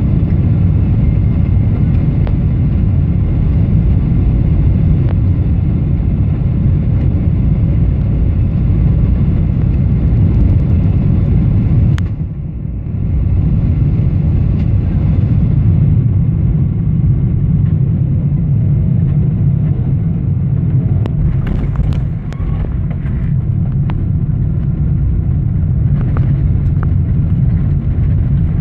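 Steady low rumble of a Boeing 777-300ER heard from inside the cabin during the landing: engine and airflow noise. The rumble drops briefly about twelve seconds in, and a few short clicks or knocks come near the end.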